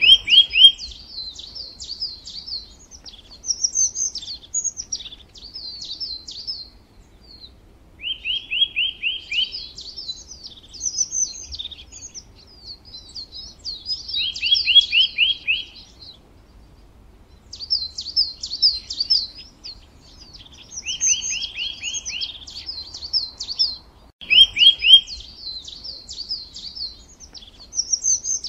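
A songbird singing in repeated phrases, each opening with a rapid run of trilled notes and going on into high, quick twittering. The trill comes about five times, with short pauses between phrases.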